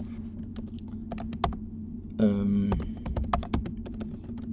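Keystrokes on a computer keyboard as a line of code is typed: an uneven run of single key clicks. A short hummed voice sound comes about two seconds in.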